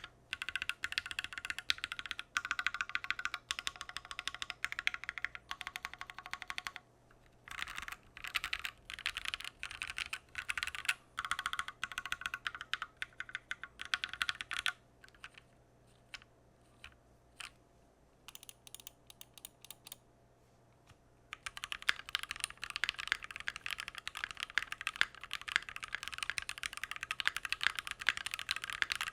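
Typing on a Keychron Q1, an aluminium gasket-mounted mechanical keyboard. It opens with fast, continuous keystrokes. From about seven seconds in it breaks into short bursts and single key presses, with a few seconds of near pause, and fast continuous typing resumes for the last third.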